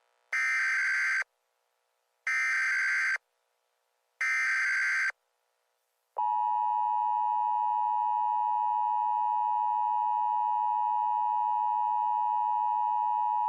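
Emergency Alert System tones: three bursts of SAME header data, a buzzy digital warble about a second long each, then the steady two-tone EAS attention signal starting about six seconds in.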